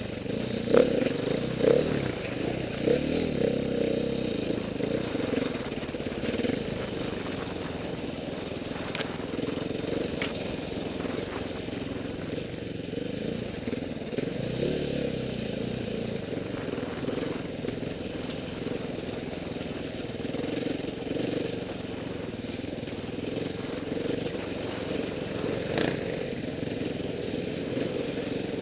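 Off-road motorcycle engine running steadily while riding a rough, muddy trail, with a few sharp knocks from the bike over the ruts.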